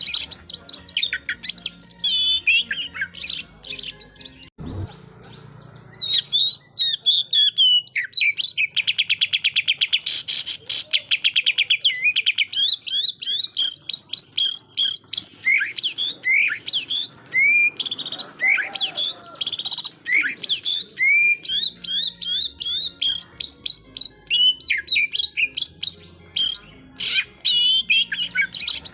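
Oriental magpie-robin (kacer) singing a loud, fast, varied song of whistles and chirps, the rapid-fire 'tembakan' style. About eight seconds in it breaks into a quick rattling run of repeated notes, after a short lull with a click around four to five seconds in.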